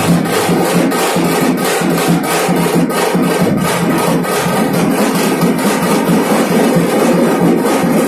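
Punjabi dhol drumming at a steady, fast beat of several strokes a second, loud and somewhat distorted.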